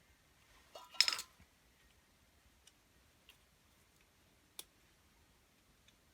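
A short clatter of small hard parts knocking together about a second in, then a single sharp click a few seconds later, with faint ticks between: hammer drill parts being handled during repair.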